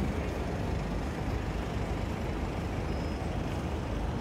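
Steady low rumble of city street noise, with road traffic in the distance.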